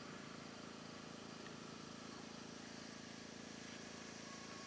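Faint, steady hum of the E-flite Carbon-Z Cessna 150T's electric motor and propeller as the model plane comes in to land, over a steady outdoor hiss.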